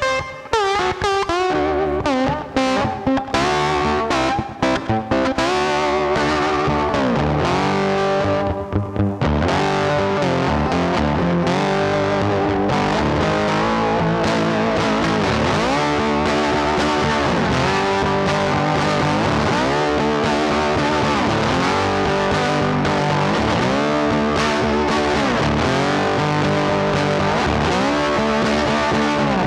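Background music with a distorted electric-guitar-style lead playing a bending, repeating melody over a steady accompaniment.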